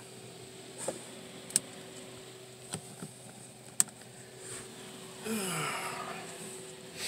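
Several sharp clicks, spaced irregularly, as the trailer's interior light switches are flipped on. About five seconds in comes a short vocal sound that falls in pitch, and a faint steady hum runs underneath.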